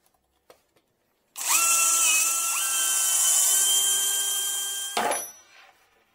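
Cordless drill boring into a wooden shelf board: a motor whine that starts about a second and a half in, steps up in pitch twice, and cuts off sharply after about three and a half seconds with a short knock.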